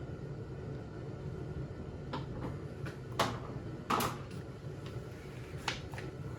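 A few sharp clicks and knocks of chainsaw parts and tools being handled on a workbench, about four in all, over a steady low hum.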